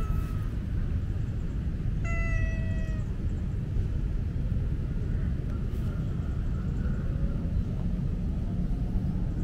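A cat meows once about two seconds in, a single call of about a second that falls slightly in pitch, after the tail of an earlier meow at the very start. A steady low rumble runs underneath.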